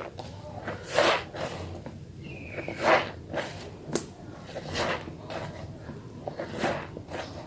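A wet Sabun Holly mini soap bar being lathered, wet rubbing strokes that swell about every two seconds, with a sharp click about four seconds in.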